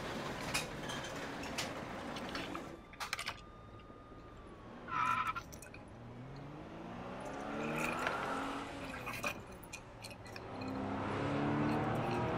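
Car engine sounds that rise and fall in pitch twice over a noisy background, with scattered clicks and a brief high tone about five seconds in, while toy police vehicles are played with.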